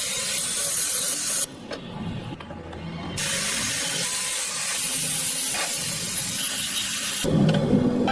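A steady, loud hissing noise in two stretches, broken off abruptly for about two seconds between them. A deeper mechanical rumble takes over near the end.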